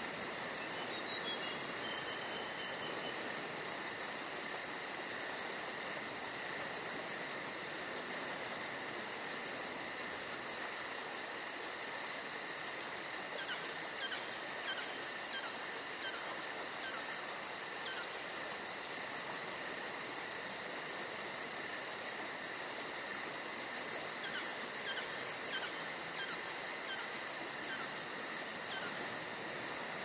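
Crickets chirping in a steady, continuous high trill over a faint background hiss. A run of quick, faint high chirps comes about halfway through and again near the end.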